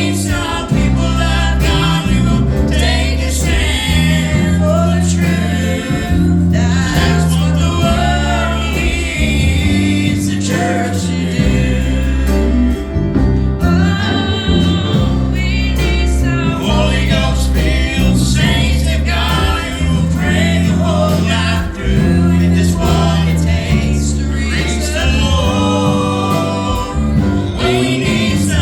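Gospel group singing in several-voice harmony over instrumental backing with a steady bass line.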